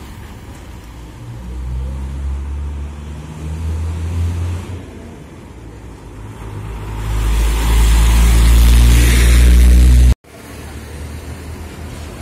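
Trucks passing close on a road. One truck's engine drones by in the first few seconds. A second truck then grows louder as it approaches, its engine and tyre noise loudest about eight to ten seconds in, before the sound cuts off abruptly at an edit. Quieter traffic noise follows the cut.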